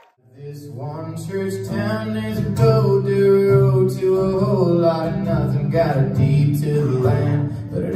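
Live acoustic set: a male voice sings long held notes over strummed acoustic guitar. The sound cuts out for a moment right at the start, then comes back in.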